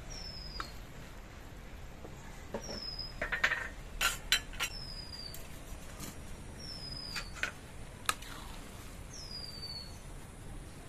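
A bird repeats a short, high, falling whistle about every second and a half. In between, a metal spoon knocks and scrapes against a metal kadai of cooked rice, the sharpest clinks in the middle and one more near the end.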